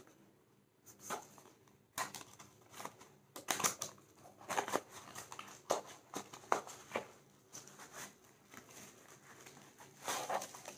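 Bubble wrap and a small cardboard box being handled and pulled open by hand: irregular crinkling and rustling in short uneven bursts.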